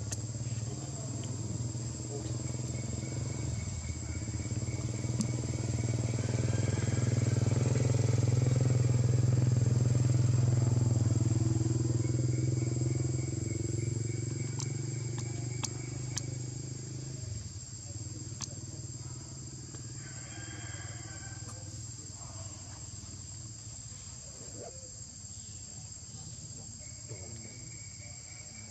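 A vehicle engine humming steadily, growing louder toward the middle and then fading, dropping away about two-thirds of the way through. Insects shrill steadily throughout.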